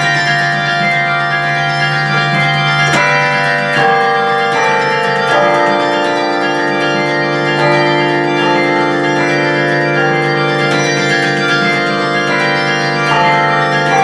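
A 48-bell bronze carillon played by hand from its baton keyboard: a slow melody of struck bell notes, each one ringing on under the next.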